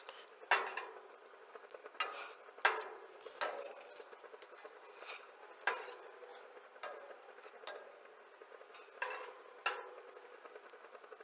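Perforated stainless-steel skimmer scraping and clinking against a steel stockpot and a steel bowl while scum is skimmed off boiling chicken stock. The clinks are light and come about once a second.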